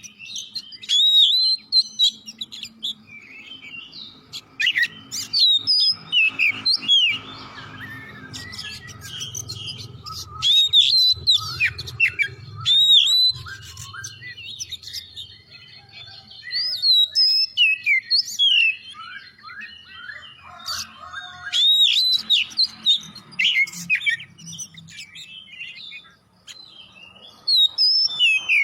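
Oriental magpie-robin singing vigorously: rapid, varied phrases of clear whistles, upslurs and downslurs and sharp chirps, delivered in bursts separated by short pauses.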